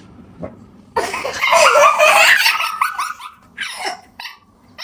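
A child shrieking loudly: a sudden, wavering high cry starting about a second in and lasting about two seconds, followed by a few shorter cries.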